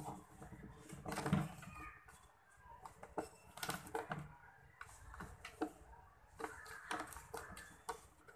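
Chickens clucking in short, irregular notes, mixed with scattered light taps and clicks.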